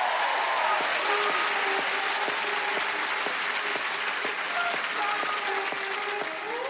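Studio audience applauding and cheering, a dense steady clapping that slowly dies down.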